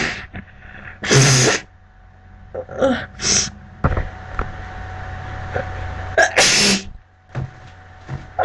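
A person sneezing: two loud, sudden sneezes, one about a second in and another about six seconds in, with softer breathy sounds between them.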